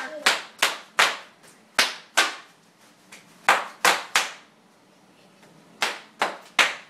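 Bubble wrap popping under children's stomping feet: about a dozen sharp, loud pops in irregular clusters, with a gap of about a second and a half before three final pops near the end.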